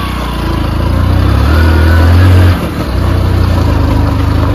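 Motorcycle engine running as it is ridden. It pulls harder and grows louder, then eases off sharply about two and a half seconds in and carries on more evenly.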